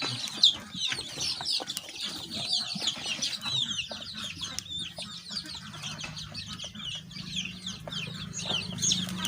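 A brood of three-week-old local chicks peeping continuously, many short falling cheeps overlapping, with a few sharp handling clicks and knocks, the loudest just after the start. A faint low hum comes in about halfway through.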